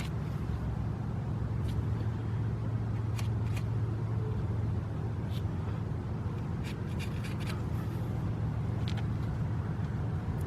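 Steady low hum, with scattered light clicks and taps of metal brake parts being handled.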